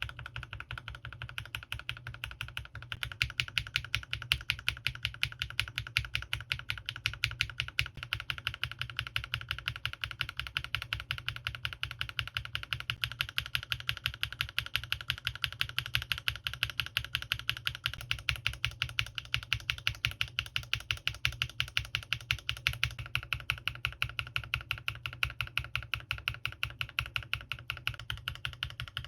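Rapid, steady typing on a CannonKeys Rekt1800 mechanical keyboard with Krytox-lubed linear switches, PBT keycaps, memory-foam dampening and a force-break mod: a fast, even stream of keystroke clacks with no pauses.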